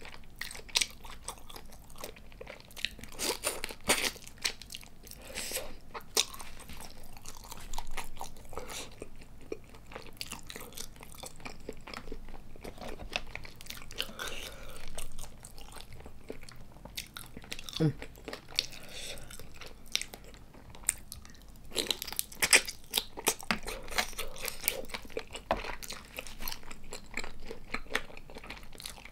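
Close-miked chewing and wet mouth sounds of someone eating soy-sauce-marinated tiger prawns, with frequent sharp, irregular clicks and smacks. A denser run of them comes about three quarters of the way through.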